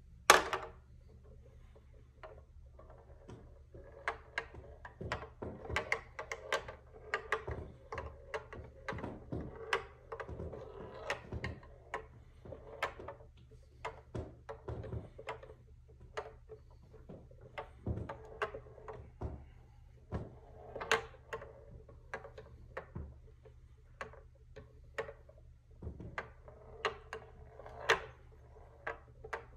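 Steel ball rolling across a wooden BRIO labyrinth board as it is tilted, with irregular clicks and knocks as it hits the maze walls. There is one sharp knock right at the start, when the ball is set down.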